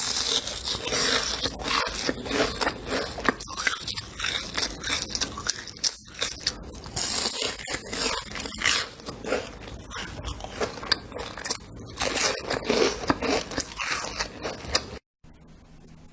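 Close-up crunching from something being bitten and chewed, an irregular run of crackly snaps. It cuts off abruptly about fifteen seconds in, and a quieter sound follows.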